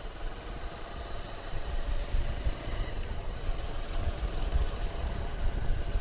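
Bajaj Avenger 220 Cruise motorcycle's single-cylinder engine running steadily while riding along a road, over an uneven low rumble of wind on the microphone.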